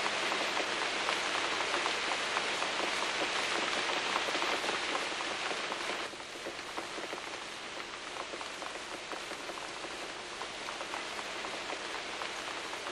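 Rain falling on rainforest ferns and foliage: a dense, steady patter of drops that becomes quieter about six seconds in.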